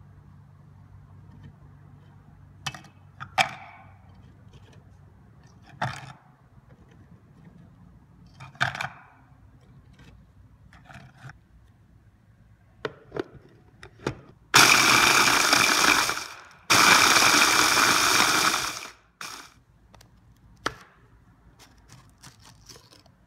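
Biscuits knocking and clicking as they are dropped into a plastic chopper bowl. Then an electric mini chopper runs in two bursts of about two seconds each, grinding the dry biscuits into crumbs.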